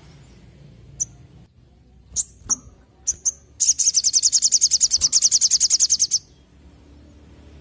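Sogok ontong sunbird singing: a few short, high chirps, then a fast, high rattling trill of about a dozen notes a second that runs for over two seconds and stops.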